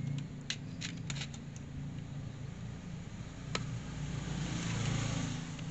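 Small sharp clicks and ticks of a screwdriver and screws on a plastic laptop hard-drive caddy: several in the first second and a half, one more about three and a half seconds in. Near the end comes a short scraping rasp as a screw is driven in. A steady low hum runs underneath.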